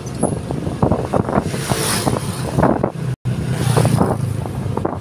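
Wind buffeting the microphone of a moving motorcycle, over the motorcycle's engine running steadily at road speed. The sound cuts out for an instant about three seconds in.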